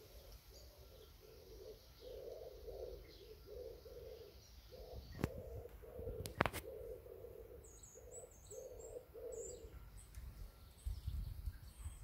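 A dove cooing in a long series of low, evenly repeated notes, with a few brief high bird chirps in the second half. Two sharp clicks come a little past the middle.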